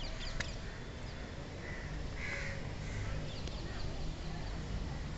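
Crows cawing a couple of times, with a few short high bird chirps, over a steady low outdoor rumble.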